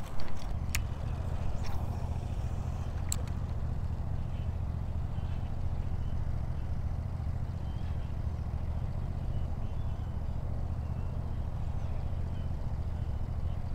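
Steady low rumble of wind on the microphone, with a few sharp clicks in the first few seconds.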